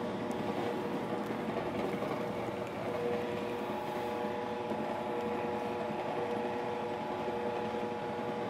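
Arke electric dough sheeter running steadily, a motor hum with a few clear held tones, as a sheet of dough passes through its rollers.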